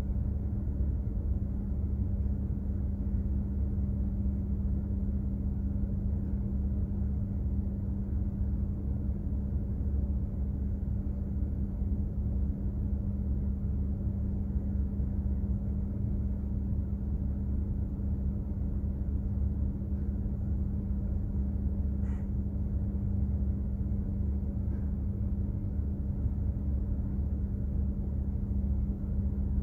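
Steady low drone of a container ship under way: a deep, unchanging rumble with a constant hum from the ship's engines and machinery.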